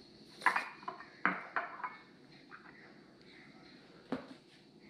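Small ceramic bowls being picked up and set down on a granite countertop: a few short knocks and clinks, several in the first two seconds and one more about four seconds in.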